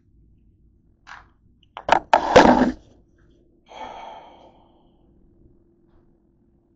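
Loud clattering and rustling handling noise as the camera is picked up and moved, with a short knock about a second in and a softer rustle a couple of seconds later.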